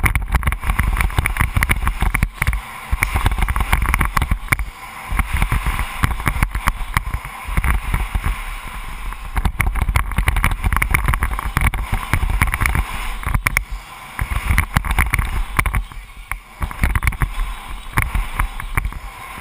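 BMX bike racing down a start hill and around a dirt supercross track, heard from a camera on the handlebars: wind buffeting the microphone, with the rumble and rattle of the bike jolting over the dirt. The sound is loud and continuous, full of short knocks and gusts.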